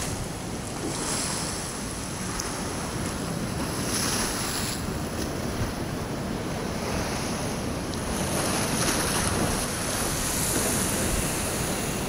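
Heavy sea surf breaking against a concrete breakwater: a steady rushing wash of waves that grows louder past the middle, with wind buffeting the microphone.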